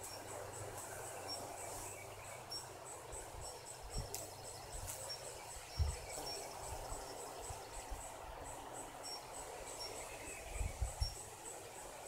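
An insect chirping in a high, even rhythm, about four chirps a second, over a faint outdoor hiss, with a few soft low bumps of wind on the microphone.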